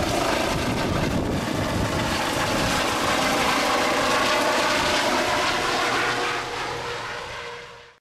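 Medical helicopter running, a steady turbine whine over rotor noise, fading out near the end.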